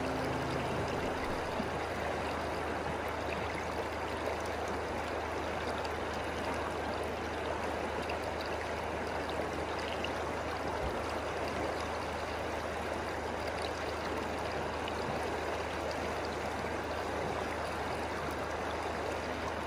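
Shallow river water running over and around rounded stones along the bank, a steady, even rush.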